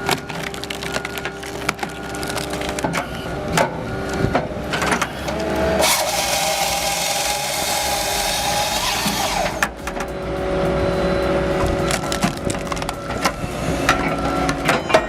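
Halverson HWP140B firewood processor working logs: its engine and hydraulics run steadily under repeated cracks and knocks of wood being cut and split. A louder, denser stretch comes from about six to nine and a half seconds in.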